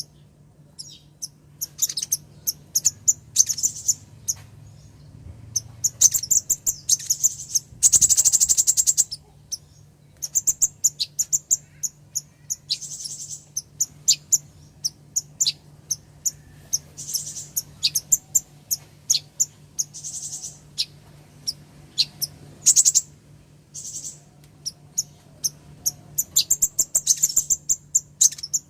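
Female kolibri ninja (a sunbird) calling to a male: a string of rapid, high-pitched chips and short twittering runs, with a denser unbroken trill about eight seconds in. A faint steady low hum lies underneath.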